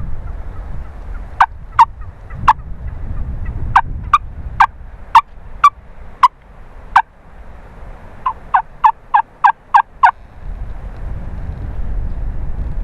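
A series of turkey yelps, short sharp notes. First about ten single yelps come spaced out, then a quick run of about eight near the end.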